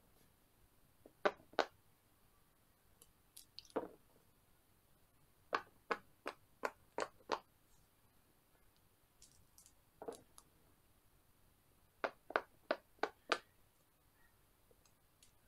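Silicone pop-it bubbles pressed one after another, giving crisp pops in quick runs of up to six, about three a second. A couple of duller knocks come between the runs, from dice dropped on the silicone board.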